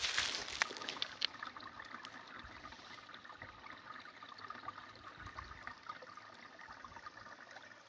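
Spring water trickling from a metal outlet pipe into a shallow pool, a light steady trickle with small drips. A few sharp crackles in the first second.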